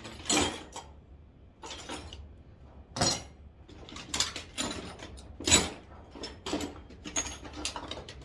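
Metal sockets clinking and knocking against each other and against tools as they are picked out of a socket set and tried for size on a small bolt: a string of separate sharp metallic clinks.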